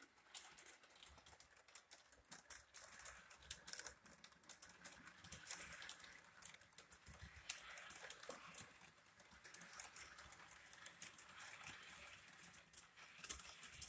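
Faint, irregular clicking of model train cars rolling along the track.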